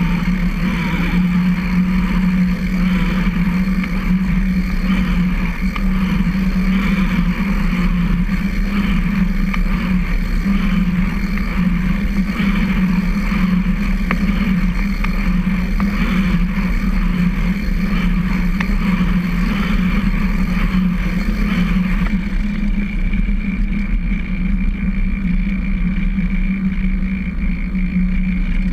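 Steady riding noise from a recumbent trike rolling on a concrete trail: a constant low hum and rumble from tyres and drivetrain with wind on the camera microphone, and a faint pulse about once a second.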